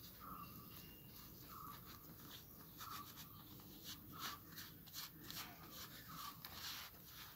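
Fingers squishing and rubbing a thick spice paste against a banana leaf, faint scraping strokes that come more often in the second half. A faint short chirp repeats about every second and a quarter in the background.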